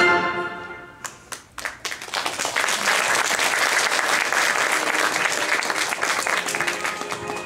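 Audience applauding. Orchestral music fades out at the start, a few scattered claps follow, and the clapping then swells into full, steady applause. Music comes back in near the end.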